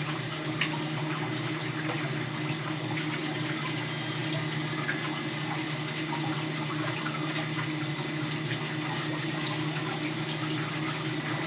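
Water spraying and splashing steadily from irrigation drippers on a pressurised pipe, falling onto the test rig below, with a steady low hum underneath.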